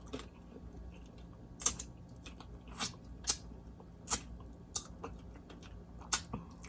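Mouth sounds of someone eating fried whole red snapper: chewing, with about six short, sharp crunches and smacks spread through.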